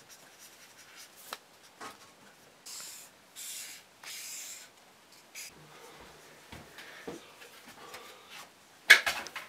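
A pen scratching across paper on a clipboard in short strokes, the longest bursts of writing about three to four and a half seconds in. A brief loud noise comes near the end.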